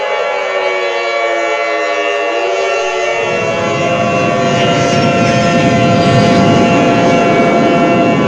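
Siren-like wail sliding down in pitch, then from about three seconds in a loud steady horn-like drone over a dense rumbling noise: dramatic electronic alarm sound effects in a mock emergency alert.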